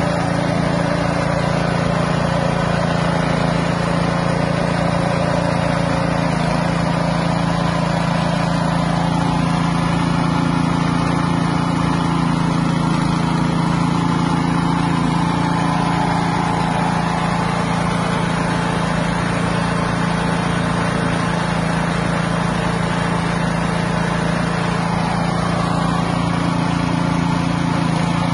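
Floating fish-feed pellet extruder running steadily at an unchanging pitch, powered and turning out pellets.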